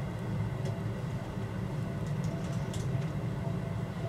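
Seibu 2000 series electric train running, heard from inside the leading car: a steady low rumble with a few faint clicks.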